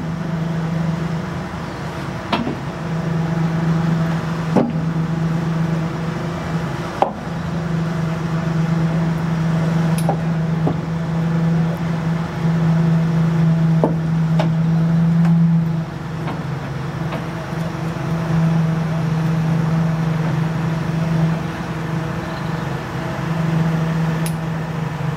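Turntable turning a steam locomotive: a steady machine hum that stops and starts a few times, with sharp clicks and knocks every few seconds as the wheels and turntable deck shift.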